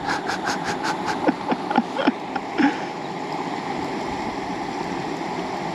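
A quick run of splashes, about five a second, that thins out after a couple of seconds: a small pike thrashing at the surface as it is brought in on an ultralight rod. Under it runs a steady rush of river water and wind.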